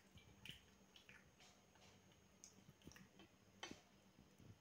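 Near silence: room tone with a faint low hum and a few faint, scattered small clicks.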